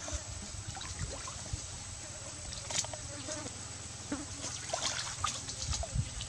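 Shallow stream water sloshing and trickling as hands reach and grope in it, with scattered small splashes and clicks. A steady high-pitched insect drone runs underneath.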